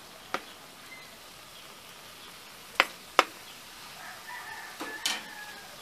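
Spatula clacking against an electric griddle: a light tap, then two sharp taps close together about halfway through, and another clack near the end.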